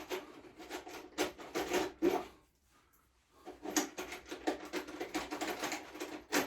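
Hands working with tools and parts at a workbench: irregular rubbing, scraping and light clicks, with a second of silence about halfway through.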